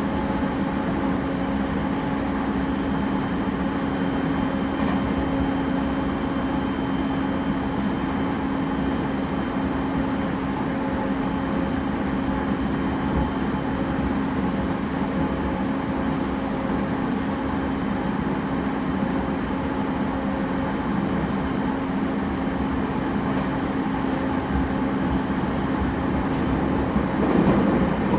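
Running sound of a JR East E231 series 0 commuter train with Mitsubishi IGBT-VVVF drive, heard inside the passenger car at steady speed. The wheels rumble on the rails under a steady hum, with a brief swell in the rumble near the end.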